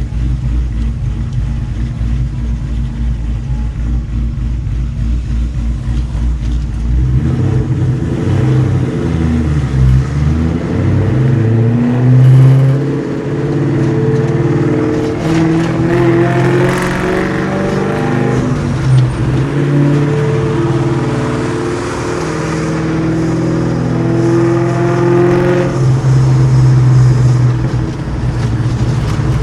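Cammed, Whipple-supercharged 2003 Mustang SVT Cobra's 4.6-litre V8, breathing through Kooks headers and a Borla ATAK exhaust. It idles with a low pulsing beat for about seven seconds, then pulls away, revving up in steps through several gear changes. It holds a steadier note and eases back down near the end.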